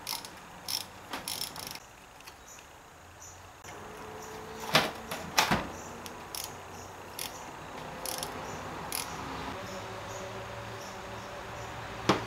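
Small hand ratchet with a Torx bit clicking in short runs as T25 bolts are backed out of a transmission cover, with two louder knocks of metal on metal around five seconds in.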